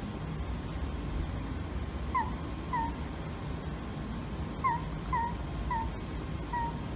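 A tawny owl giving about six short, squeaky calls that each dip in pitch, the first coming about two seconds in and the rest singly or in pairs, over a low steady background rumble.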